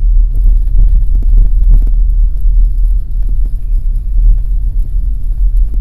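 Steady low rumble of the Daihatsu Taft kei car, a deep continuous drone with no distinct events.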